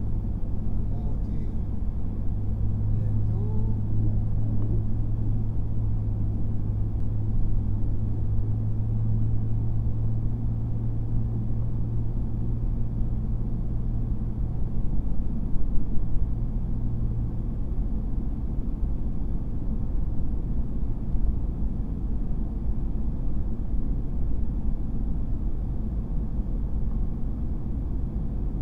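RAM 3500 pickup with the 6.4 HEMI V8 driving slowly on a snow-covered road, heard from inside the cab: a steady low engine drone over road rumble, easing a little after about 17 seconds.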